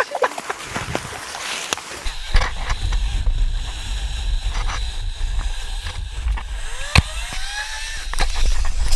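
Electric chainsaw running and cutting into a tree trunk, a steady high whine over a low rumble starting about two seconds in, with loud cracking knocks near the end.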